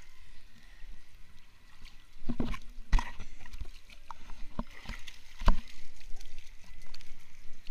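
Handling noise from a handheld phone being moved about: several sharp knocks and rubs against a steady wash of water sound.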